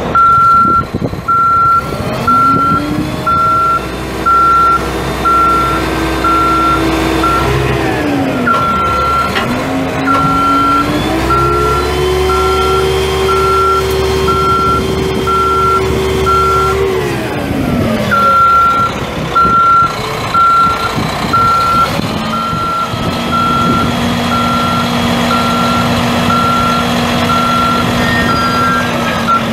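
Backup alarm beeping steadily at one pitch over the crane truck's Caterpillar 3176 six-cylinder turbo diesel, which revs up, holds and drops back, three times over. The beeping pauses briefly as the engine drops back.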